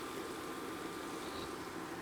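Faint steady background noise with a low hum.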